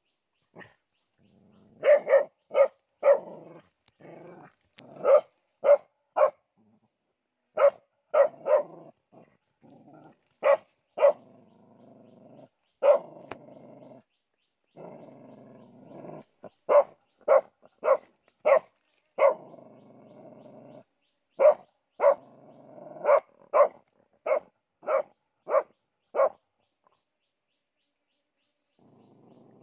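A dog barking excitedly in quick clusters of short barks, with growling between them, while it digs at the burrow of an animal hiding inside. The barking stops a few seconds before the end.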